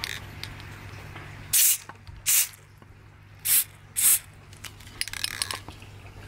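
Aerosol can of McLube silicone dry lubricant sprayed onto masthead sheaves in short hissing bursts: four strong squirts in quick succession, then a fainter one.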